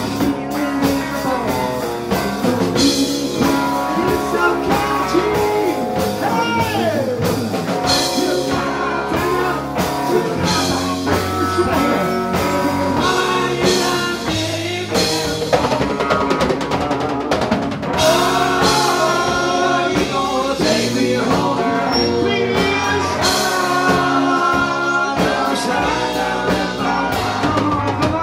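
Live rock band playing loud: electric guitar, bass guitar and drum kit, with a singer.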